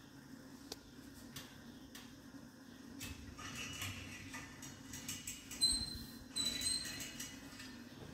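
Faint sounds of gym exercise machines in use: a low steady hum with scattered clicks, and from about three seconds in, short high squeaks, the loudest a little past halfway.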